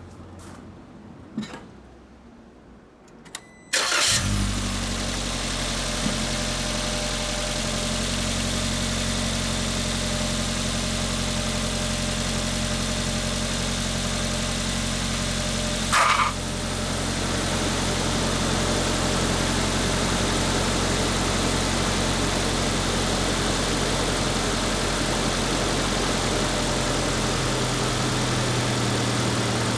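Suzuki Jimny Sierra JB74's 1.5-litre four-cylinder engine starting about four seconds in, then idling steadily. About twelve seconds later a short, loud squawk of about half a second sounds as the air conditioning switches on, and the idle note shifts slightly after it. This is the 'gya!' noise that comes only on the first AC start after the car has stood unused for a day or more, also found on other JB74 and JB64 Jimnys.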